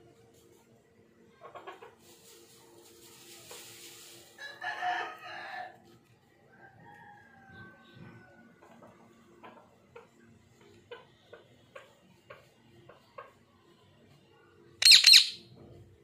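Indian ringneck parakeet calling: a short burst of calls about five seconds in, a run of soft ticks, then a loud, shrill double screech near the end.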